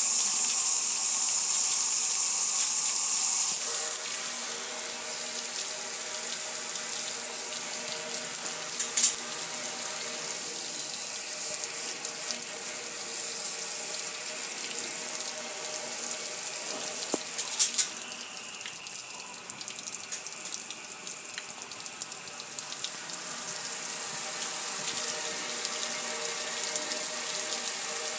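Water spraying onto a metal gas grill and splashing and running off its lid and control panel in a steady hiss. The spray is loudest for the first few seconds, drops about four seconds in, and dips quieter for a few seconds past the middle.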